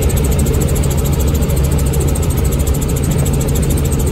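Steady drone of a Robinson R44 Raven II helicopter in flight, its six-cylinder Lycoming piston engine and rotors heard from inside the cabin.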